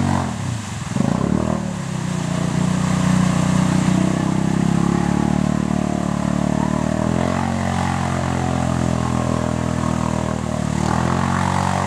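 Yamaha Grizzly 700 ATV's single-cylinder engine revving hard while its wheels spin in deep mud, the quad stuck and being pushed. The revs sag and pick up again a few times.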